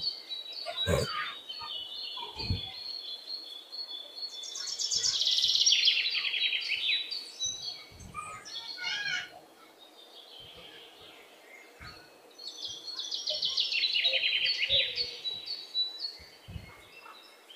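A bird sings a fast, descending trill of rapid notes twice, about five seconds in and again some eight seconds later. Between them come a few light knocks of PVC pipe fittings and a valve being handled and pushed together.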